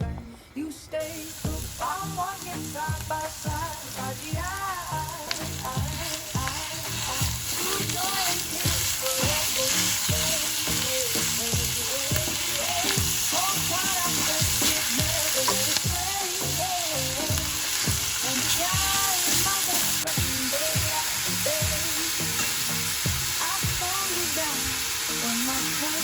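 Minced beef frying in oil in a hot pan: a steady sizzle that builds over the first several seconds, then holds, with stirring. Background music plays underneath.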